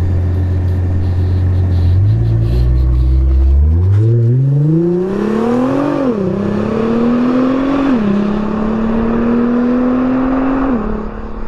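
Sports car engine idling, then pulling away and accelerating hard, its pitch climbing through the gears with upshifts about six and eight seconds in. It drops in pitch and fades near the end.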